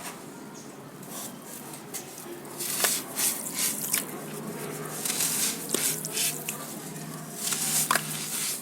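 Crispy, crunchy sand crumbling and breaking apart in water, with bursts of crackling, fizzing and dripping and a few sharp snaps.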